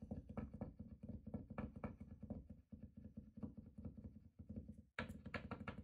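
Acrylic paint marker being primed: its nib is tapped quickly and repeatedly on paper, about five light taps a second, to get the silver paint flowing down to the tip. There is a brief pause near the end.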